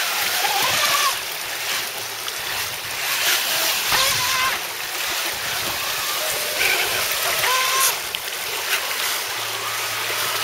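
Fast whitewater rushing and splashing, with the whine of a modified NQD RC jet boat's motor and Graupner jet drive rising and falling several times as the throttle is worked.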